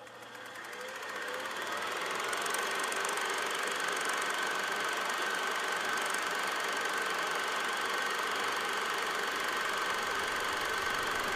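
Super 8 film projector running: a steady mechanical whirr with fast clatter and a thin steady whine, fading in over the first couple of seconds.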